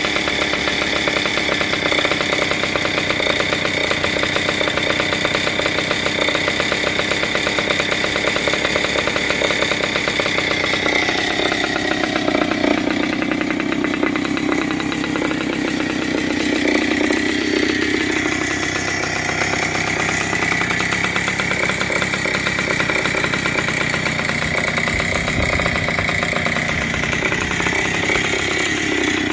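1975 Hodaka Dirt Squirt's 100cc single-cylinder two-stroke engine idling steadily, its pitch wandering a little partway through.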